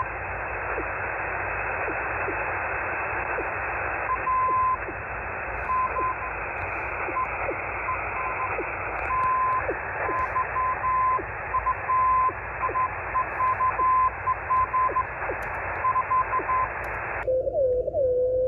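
Morse code (CW) received on a shortwave receiver in upper sideband: a steady hiss of band noise, and from about four seconds in a keyed beep tone sounding dots and dashes, with faint ticks of interference about twice a second. Near the end the wide hiss cuts off suddenly as the passband narrows, and the Morse tone goes on at a lower pitch.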